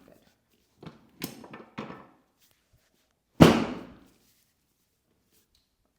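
A chiropractic drop table's section slamming down under the chiropractor's thrust, one loud sharp slam about three and a half seconds in. A few lighter knocks of the table come about two seconds before it.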